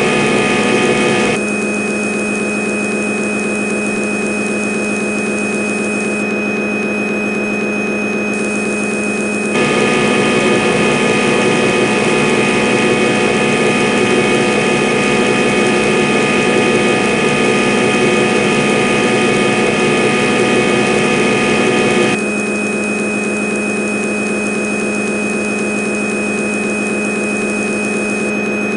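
A CNC lathe running its boring program: a steady mechanical hum with fixed whining tones. It switches abruptly between a louder and a quieter running state about a second in, again about ten seconds in, and again near 22 seconds, as the machine changes between stages of the cycle.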